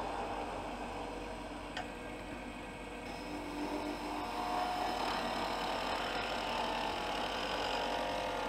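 Wood lathe running while a turning tool rides its bevel and cuts the spinning wood blank, a steady hiss and rub of the edge shaving the wood, its tone shifting as the tool moves along the cut. A faint tick comes about two seconds in.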